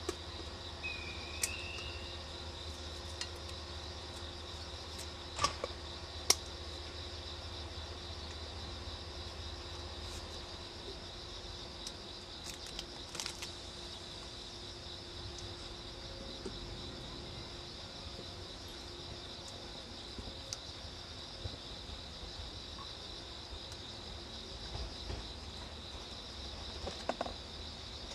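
A steady high-pitched insect drone over the low hum of a JNR 169 series electric train standing at the platform. In the second half the train pulls away with a faint low rumble. A few sharp clicks sound in the first seven seconds.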